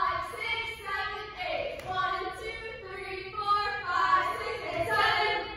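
Female singing voice carrying a melody, with faint music beneath, most likely a song played for the dance routine.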